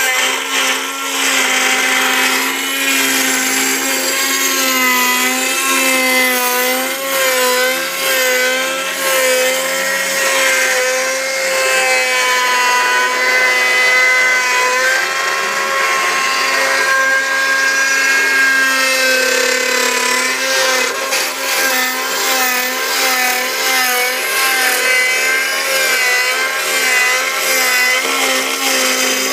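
Bravo Prodegy 3030 CNC router spindle running with a steady whine while its end mill cuts a profile pass through wood at 65% feed. The pitch wavers slightly as the cut loads it.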